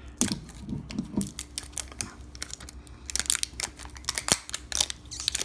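Plastic wrapping of a LOL Surprise ball crinkling and crackling in quick irregular clicks as its zip-strip is pulled open, not tearing away cleanly.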